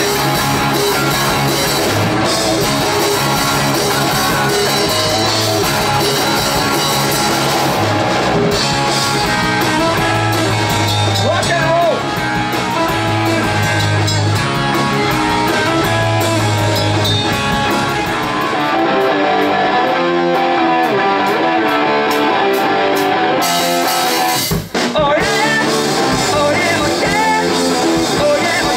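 Live rock band playing loudly in a small room: electric guitar, drum kit and sung vocals. From about 18 seconds in, the band thins out, losing its low end and cymbals, then stops for an instant and comes back in full.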